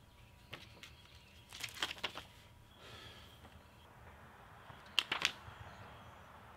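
Paper instruction sheets being handled and leafed through: faint rustles with a few short, sharp crinkles, in a cluster about two seconds in and the loudest pair just after five seconds.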